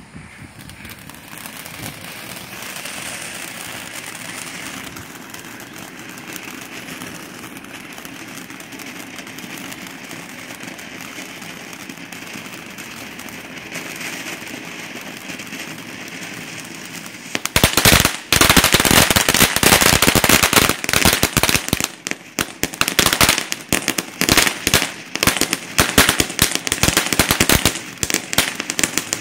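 Brothers Coliseum 500-gram fountain firework burning: a steady hiss of spraying sparks for about the first seventeen seconds, then loud, rapid crackling pops for the rest.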